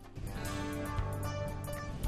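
Background music, a new passage coming in about a fifth of a second in.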